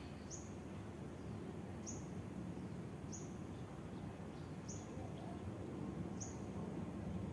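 A bird calling in woodland: a short, high chirp that drops quickly in pitch, repeated about every second and a half, over faint low background noise.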